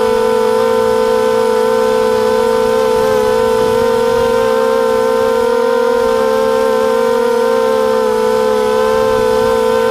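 Racing quadcopter's brushless motors and propellers whining loudly at a steady pitch, wavering slightly as the throttle shifts.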